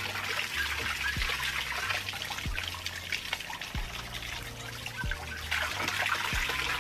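A jet of water spraying and splashing into a shallow paddling pool, a steady trickling hiss. Underneath runs background music with a soft low beat about every second and a quarter.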